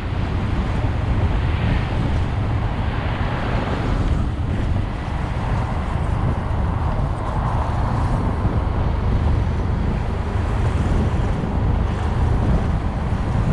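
Wind rushing over the microphone of a motorcycle-mounted GoPro while riding, with the motorcycle's running and road noise beneath, a steady deep rumble throughout.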